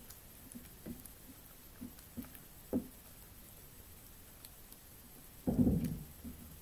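Hands squishing and kneading a no-glue clear slime made from hand soap in a small bowl: a few faint, soft wet squelches, then a louder, lower sound lasting about half a second near the end.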